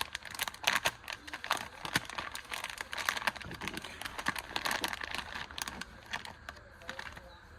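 Crinkling and rustling from small items being handled by hand, with many quick clicks and crackles; it quietens about six seconds in.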